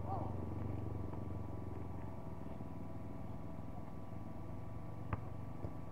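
A steady low mechanical hum, with one sharp knock about five seconds in and a fainter one about half a second later.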